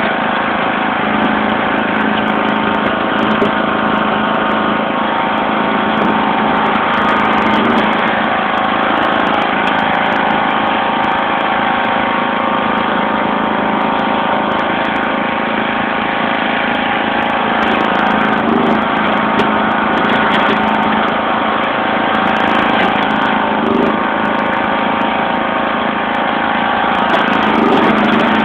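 John Deere LX176 lawn tractor's 14 hp OHV engine running at a steady speed while the tractor plows snow with its front blade.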